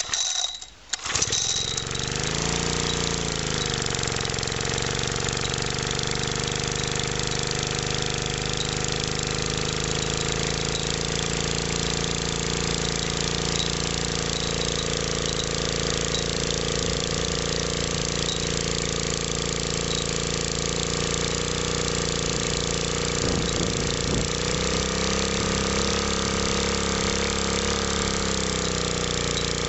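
Small BSA engine catching about a second in on a cold start after months of sitting, then running steadily at idle. This is once the fuel tap is fully on, which the owner takes to be why it would not start earlier. Its speed dips and settles just after it catches, and dips and recovers again near the end.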